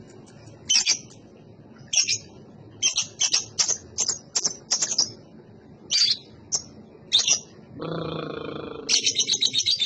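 Young lovebird calling: sharp, high chirps, some single and some in quick runs. Near the end they turn into a fast, even chatter at about five chirps a second, just after a brief lower-pitched sound.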